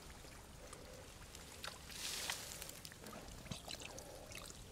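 Faint splashing and trickling water, with a brief louder splash about two seconds in and scattered small clicks.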